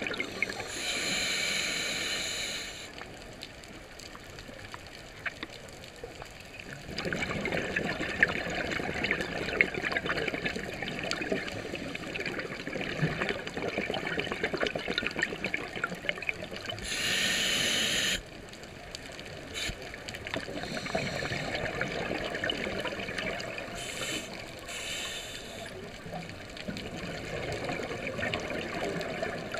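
Scuba regulator breathing underwater: a short hissing inhale through the demand valve, then a long exhale of bubbling exhaust bubbles, in two slow breaths. The inhales come about a second in and around seventeen seconds, and the bubbling runs between and after them.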